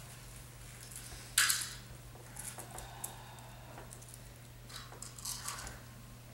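Soft scuffing and rustling of a person moving about on a stage floor, with one short, sharp hiss about a second and a half in, over a steady low hum.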